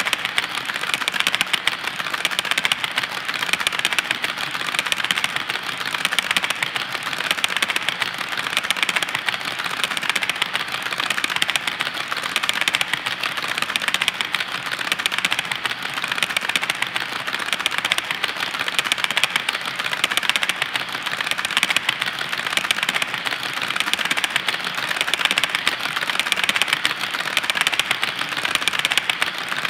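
Long train of HO scale model coal cars rolling past, their wheels clicking and rattling on the track in a dense, steady clatter.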